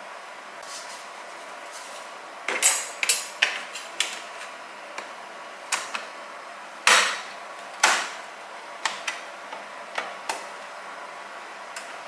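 Drip tray of a Breville Bambino Plus espresso machine being fitted together: about a dozen sharp clicks and knocks of plastic and stainless steel, the loudest about seven seconds in.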